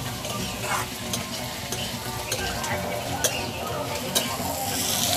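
Sliced onions frying in hot mustard oil in a kadhai, sizzling steadily while they are stirred to brown them, with sharp clicks of the metal spatula against the pan about once a second.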